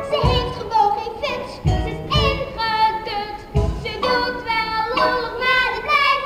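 Live musical-theatre music, recorded from the audience: an upbeat show tune with a low beat falling every second or so.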